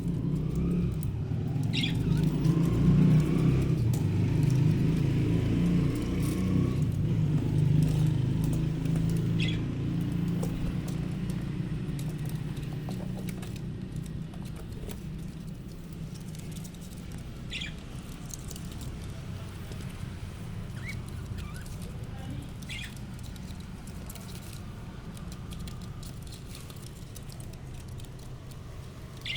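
A low rumble that swells over the first few seconds and then slowly fades, with a few short, high budgerigar chirps spaced several seconds apart.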